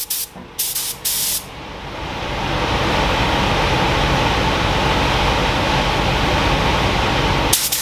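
Compressed-air paint spray gun, a gravity-feed gun set to 2 bar, test-spraying its pattern. It gives a few short blasts of hiss, then one long steady spray that stops abruptly near the end.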